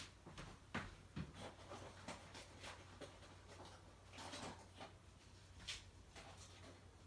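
Faint scattered small clicks and light scraping from hands working on a camera lens, over a steady low hum.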